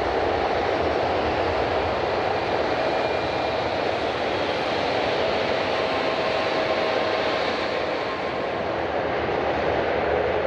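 Jet airliner engines running, a steady rushing noise with faint whining tones that come and go.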